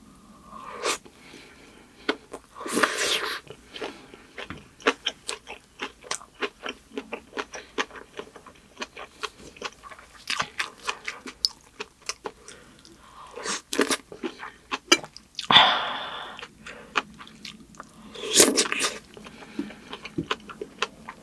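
Close-miked chewing of rice and kimchi: many small wet mouth clicks, with three louder crunchy bites spread through.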